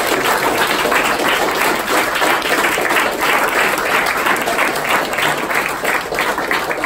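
Audience applauding, many people clapping together, easing off slightly near the end.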